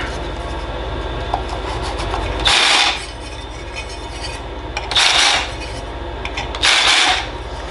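Power drill running, its bit cutting into an aluminium plate in three short bursts about 2.5, 5 and 7 seconds in.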